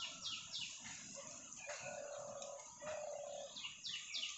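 Birds calling: a series of quick falling chirps, about four a second, at the start and again near the end, with two longer, lower held notes in the middle.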